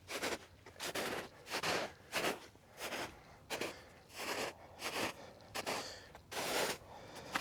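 Footsteps swishing and crunching through dry grass at a steady walking pace, about three steps every two seconds.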